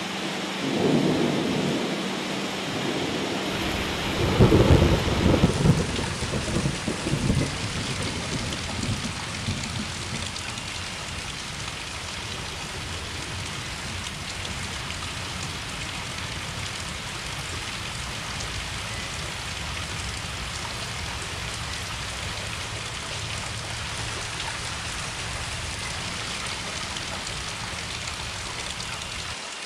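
Steady rain, with deep rolls of thunder about a second in and again, louder, from about four to seven seconds in, then rain alone.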